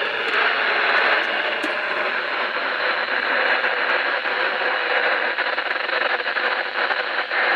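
Steady static hiss from a weather-radio receiver with light crackling and no voice on the channel.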